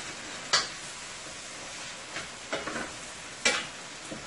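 Chicken pieces sizzling in oil in a stainless steel skillet while being stirred with a metal spoon. The spoon scrapes and clinks against the pan a few times, loudest about half a second in and again about three and a half seconds in.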